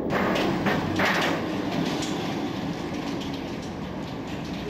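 A car driving up a portable loading ramp onto a car-carrier wagon, its engine running. There are several clanks in the first second or so as the wheels go onto the ramp, then a steady rumble.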